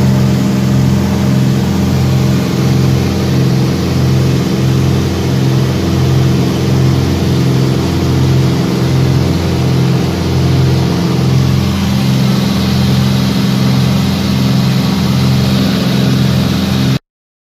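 Propeller aircraft engines droning steadily, heard from inside the cabin, with an even throbbing beat of about one and a half pulses a second.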